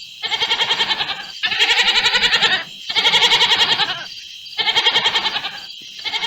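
A farm animal bleating: about five long, quavering calls, one after another with short gaps. A steady chorus of crickets runs underneath.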